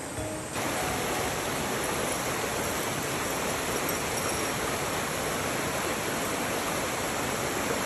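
Steady rush of a shallow, rocky river running over stones and small rapids, setting in about half a second in.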